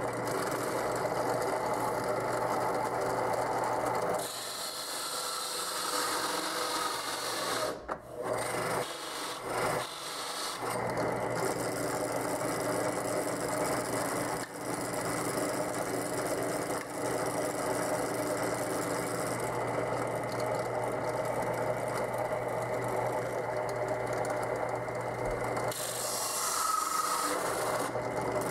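Harbor Freight drill press running with a 1.5-inch hole saw cutting through the insert plate: a steady motor hum under the rasp of the saw teeth. The sound dips briefly about eight and ten seconds in.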